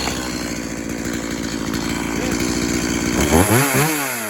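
Stihl MS180C two-stroke chainsaw running just after starting on the easy-start pull, idling steadily, then revved once about three seconds in, its pitch rising and falling back. The saw that would not start now runs.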